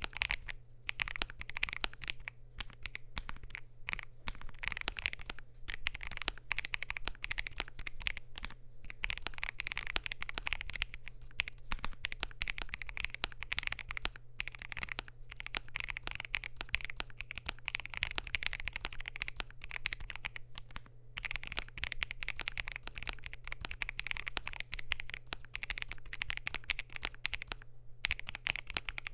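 Continuous fast typing on a CIDOO V75 mechanical keyboard with lubed, filmed CIDOO Matte linear switches on a polycarbonate plate: a dense stream of keystrokes with a few brief pauses.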